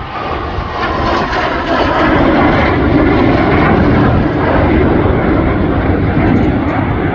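A pair of BAC Strikemaster jet trainers, their Rolls-Royce Viper turbojets running, making a display pass overhead: a continuous jet noise that swells over the first couple of seconds and then holds steady.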